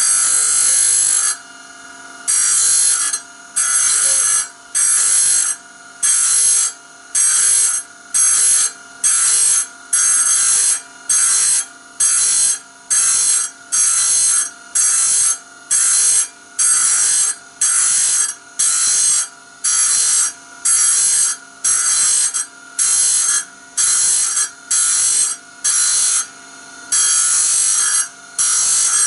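Band saw blade being sharpened tooth by tooth: a short harsh grinding stroke on each tooth, repeating evenly a bit more than once a second, with a faint steady whine underneath.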